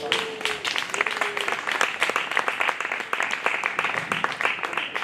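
Audience applauding: a dense, even hail of hand claps that starts right at the beginning.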